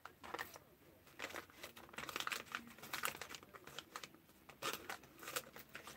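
Faint crinkling and rustling from hands handling small things close to the microphone, an irregular run of small crackles and clicks.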